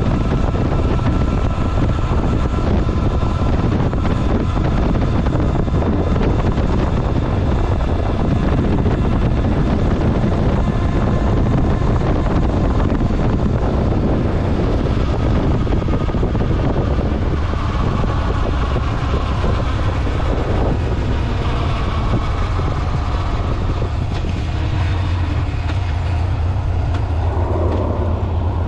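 Honda Nighthawk 750 motorcycle's air-cooled inline-four running at cruising speed, with wind rush on the microphone. The engine note shifts near the end.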